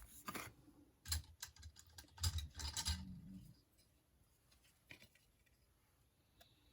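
Trading cards and packaging being handled: a string of light clicks and scratches of card stock in the first three seconds, then mostly quiet with a single small click about five seconds in.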